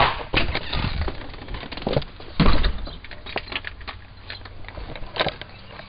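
Handling noise from a handheld camera being carried while walking: rustling with scattered clicks and knocks, the loudest about two and a half seconds in.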